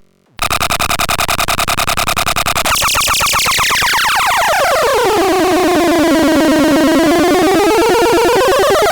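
Electronic synthesized sound effect after a brief silent gap: a rapidly pulsing buzzy tone whose pitch slides down about a third of the way in, then slowly rises again, like a siren or alarm tone.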